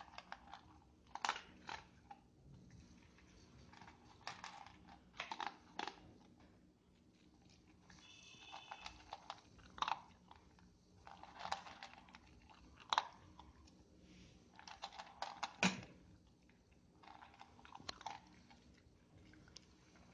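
Havanese dog crunching dry kibble from its bowl, chewing in irregular bursts of crackly crunches with short pauses between mouthfuls, tapering off near the end.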